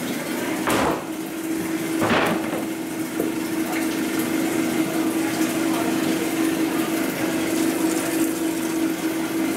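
Steady hum of bakery machinery over a constant wash of noise, with two short rushing sounds about one and two seconds in as dough trays are handled.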